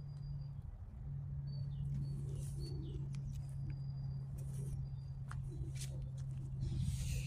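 Small birds chirping in short, high whistles, with a few sharp clicks and knocks over a steady low hum.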